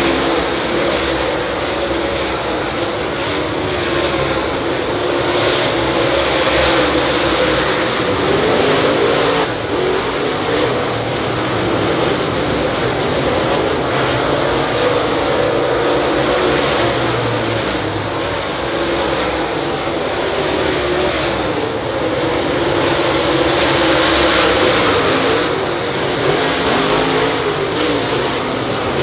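A field of dirt late model race cars running their V8 engines at racing speed. The engine notes rise and fall over and over as the cars lift off and get back on the throttle lap after lap.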